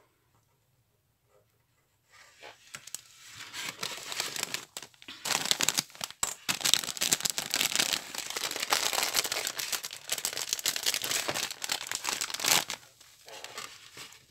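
Foil bag of artificial snow crinkling loudly as it is handled and poured out, building up after a couple of seconds and stopping suddenly near the end.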